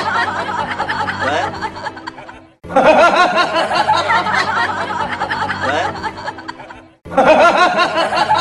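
Laugh-track sound effect of several people laughing and snickering, played as a loop: it cuts off and restarts twice, about every four and a half seconds, starting loud each time and fading.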